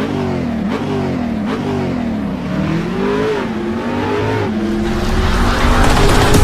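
Channel intro sting built on a car engine revving up and down, getting louder and steadier near the end as the intro builds.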